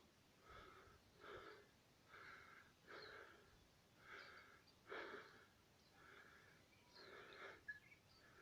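Near silence with a person's faint breathing: soft breathy hisses about once a second.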